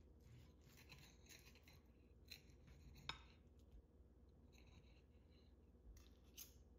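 Faint scraping and crunching of a table knife sawing through a crispy grated-potato pancake, with one sharper click of the knife against the ceramic plate about three seconds in.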